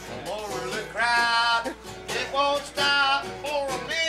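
Acoustic guitar strumming with a voice singing held, bending notes over it.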